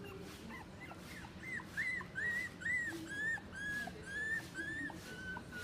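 Puppy whining in a run of short, high, arching cries, about two a second, louder from about a second and a half in.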